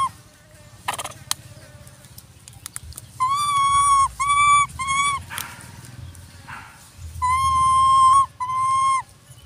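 Young macaque giving high-pitched, steady coo calls, five in all: three short ones close together, then after a pause two longer ones.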